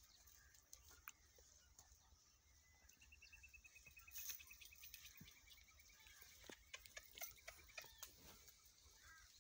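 Faint outdoor ambience with an insect's rapid pulsed trill that falls slightly in pitch, starting about three seconds in and stopping near the end, with a few light clicks near the end.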